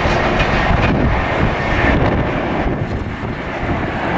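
Jet engines of an Airbus A330-300, Rolls-Royce Trent 700 turbofans, running at climb power as the airliner climbs out after takeoff: a steady, loud jet roar. It eases slightly about three seconds in and swells again near the end.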